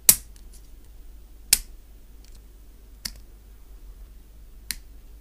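Blue-handled plastic model nippers snipping polystyrene kit parts off the runner: four sharp snips about a second and a half apart, the first two loudest.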